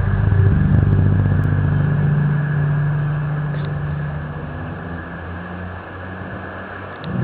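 A loud, low droning hum with a steady pitch and overtones over a hiss, the kind of 'strange sound from the sky' whose origin is unknown. It swells at the start, fades after about four seconds, and a new swell begins right at the end.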